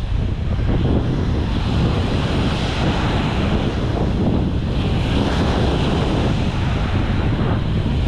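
Surf breaking on a sandy shore, mixed with steady wind rumbling on the microphone.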